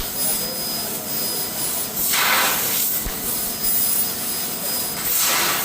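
CNC laser cutting machine cutting steel sheet: a steady loud hiss of gas and machine noise with a faint high whine that comes and goes. The hiss swells about two seconds in and again near the end.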